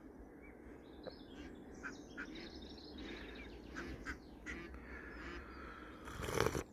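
Live decoy ducks quacking faintly in short, scattered calls, working to call wild drakes in. A brief louder sound swells shortly before the end.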